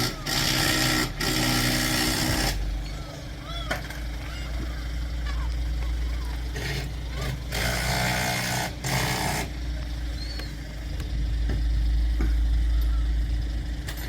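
Seagulls giving short, scattered calls over a steady low rumble, with two long stretches of loud hiss.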